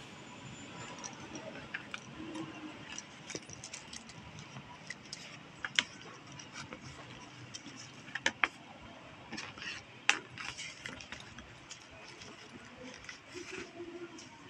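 Handling a small zippered fabric pouch: scattered light clicks, taps and fabric rustling as things are handled in it, with a few sharper clicks about six, eight and ten seconds in.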